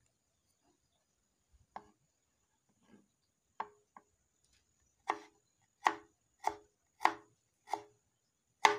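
Kitchen knife chopping ginger on a wooden chopping board: a few faint knocks in the first half, then a regular run of sharp knocks, about one and a half a second.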